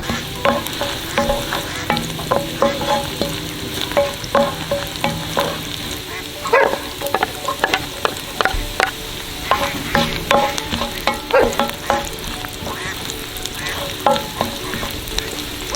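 Food sizzling in a pan while a utensil stirs it, with many irregular clicks and scrapes of the utensil against the pan over a steady hiss.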